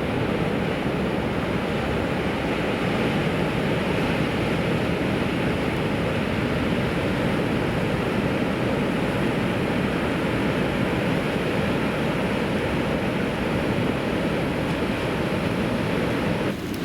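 Steady rush of ocean surf breaking along a beach, with wind on the microphone; the sound drops slightly near the end.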